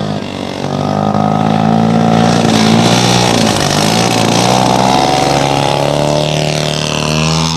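Engine of a large radio-controlled scale model airplane running at high power on its takeoff roll, a loud, steady propeller drone.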